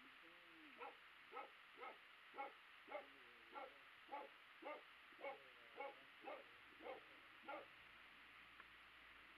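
A dog barking faintly, about a dozen short barks at nearly two a second, then stopping.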